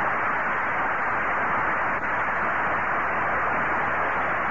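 Studio audience applauding steadily, as a dense even clatter of many hands.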